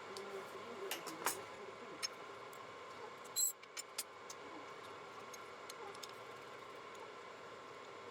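Light metallic clicks and taps of tools and a brass workpiece being handled at a small lathe, over a steady machine hum; one bright, ringing metal clink stands out about three and a half seconds in.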